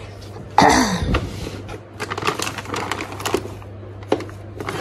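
A plastic storage drawer pulled open with a loud scrape about half a second in, then the crinkle and rustle of plastic dog-chew packets and light clicks as a hand rummages through them.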